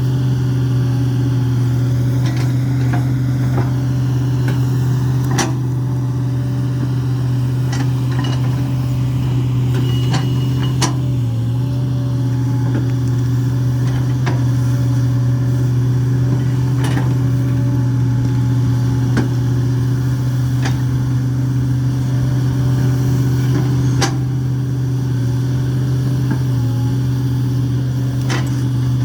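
Hitachi excavator's diesel engine running at a steady, even speed with a strong low hum, while scattered sharp knocks and cracks come through every second or two.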